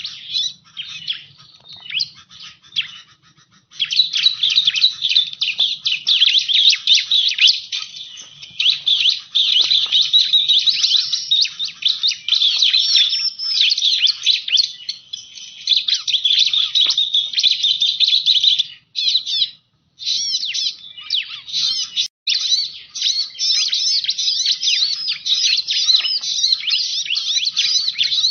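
Ciblek (prinia) song used as a bird-trapping lure call: a rapid, continuous string of high chirps and trills. It is sparse for the first few seconds, then dense, with a couple of brief breaks past the middle.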